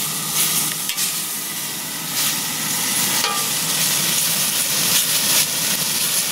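Cubes of chicken frying and sizzling in hot bacon grease in a cast-iron Dutch oven, with a metal spatula scraping against the pot now and then as it turns them.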